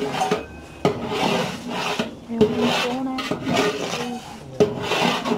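Long metal ladle scraping and stirring ginger-garlic paste frying in a large aluminium pot, in repeated rasping strokes. The ladle knocks sharply against the pot three times.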